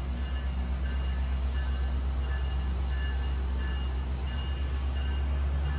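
GO Transit bilevel commuter train standing at the platform with its diesel engine running: a loud, steady low drone.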